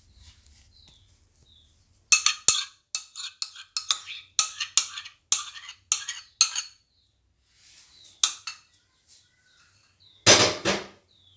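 Metal whisk clinking against the bowl as batter is beaten, about three strikes a second for several seconds, then a few stray clinks and one louder knock near the end.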